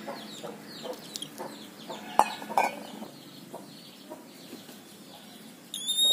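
An electronic buzzer starts near the end with a loud, steady high-pitched beep, set off when poured water bridges the bare binding-wire contacts in the bottle-cap rain sensor. Before it, short repeated calls in the background and a couple of sharp clicks about two seconds in.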